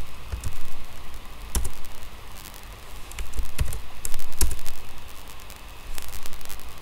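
Computer keyboard keys clicking in irregular clusters of keystrokes, some with a dull low thud, over a faint steady hum.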